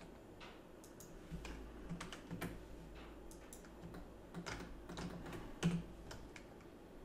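Irregular clicks and taps of a computer keyboard and mouse, at a low level, with one louder click near the end.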